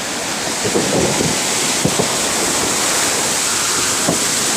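Sea surf breaking and washing up the shore: a steady rushing that swells a little in the first second or so.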